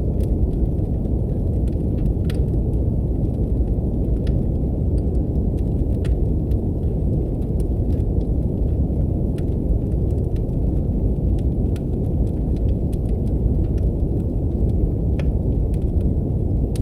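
Steady brown noise, a deep even rumble, layered with the irregular pops and crackles of a wood fire burning in a fireplace.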